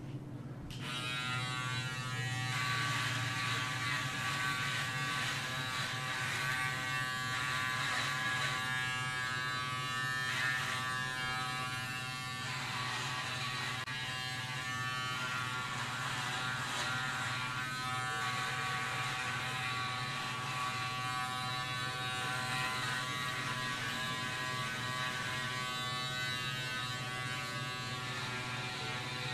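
Electric tattoo machine buzzing steadily, starting about a second in.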